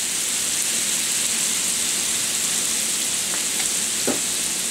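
Water, Worcestershire sauce and lemon juice sizzling and bubbling in a hot frying pan over the liver drippings, starting to cook down into a pan sauce. A steady hiss, with a few faint small pops around three to four seconds in.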